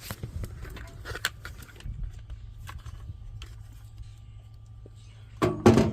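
Light clicks and rustling of electrical wiring being handled and fed through an opening in a pellet smoker's control box, over a steady low rumble.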